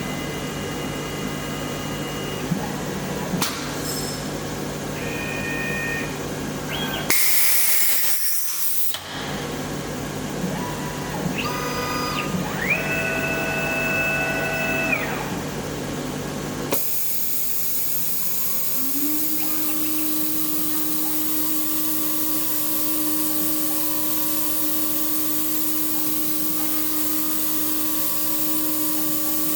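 Desktop mini CNC milling machine going through an automatic tool change. Axis motors hum and whine through short moves, with a loud hiss lasting about two seconds a third of the way in. One longer move whines up, holds and falls back. Near the end a spindle spins up and settles into a steady whine.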